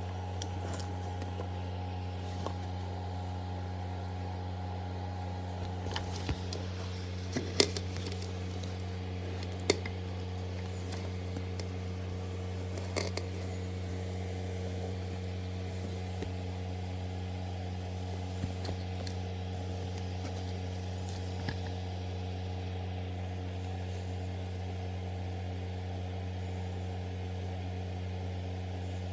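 Steady low machine hum, with a higher tone in it that stops about six seconds in, and a few sharp clicks between about seven and thirteen seconds.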